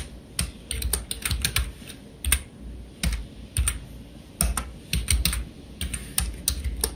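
Typing on a computer keyboard: quick, uneven runs of keystrokes with short pauses between them.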